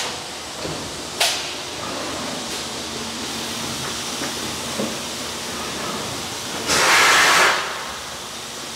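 All-electric three-layer blow molding machine running with a steady hiss of factory noise, a short sharp hiss about a second in, and a louder burst of hissing air lasting nearly a second near the end.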